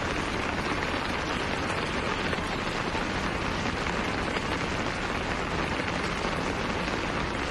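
Heavy rain and fast-flowing floodwater making a steady, even rushing noise.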